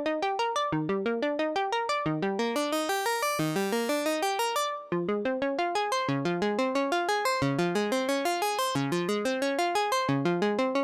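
Elektron Analog Keys analog synthesizer playing a Juno-60-style patch as a fast arpeggio: short plucked notes in repeating rising runs. The tone grows brighter for a couple of seconds near the start, and there is a brief break about five seconds in.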